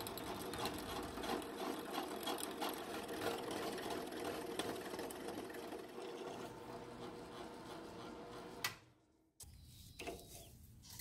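Drill press running a half-inch twist drill through metal bar stock: a steady, dense crackle of chips being cut over the machine's hum, stopping abruptly about nine seconds in. Near the end come a few faint sweeps of a paintbrush clearing the chips.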